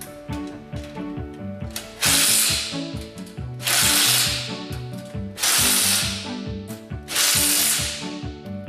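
Impact gun driving nuts onto carriage bolts in four bursts of about a second each, roughly 1.7 s apart, over background music.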